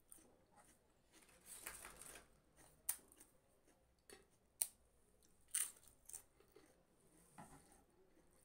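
Crisp fried pappad being broken by hand and eaten: a crackling burst about two seconds in, then a few sharp snaps.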